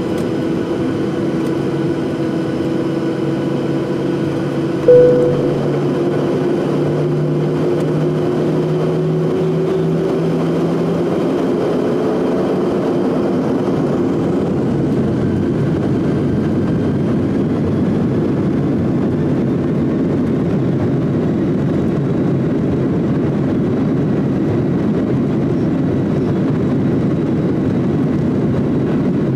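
Steady ride noise of a moving vehicle heard from inside, a continuous rumble with engine tones that slowly rise in pitch over the first dozen seconds. A brief loud tone sounds about five seconds in.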